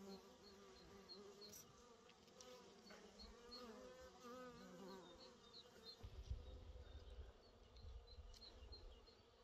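Honey bees buzzing faintly at a hive entrance, their wing tones wavering up and down in pitch. From about six seconds in, a low rumble comes in under the buzzing.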